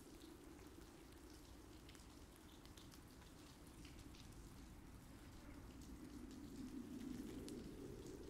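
Near silence: faint steady low noise with scattered soft crackles.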